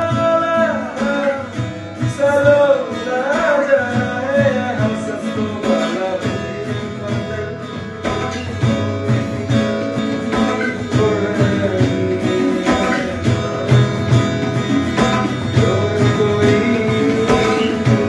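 Tabla and acoustic guitar played together, the tabla's sharp strokes running steadily under strummed and plucked guitar chords. A voice sings a wavering melody over them, clearest in the first few seconds.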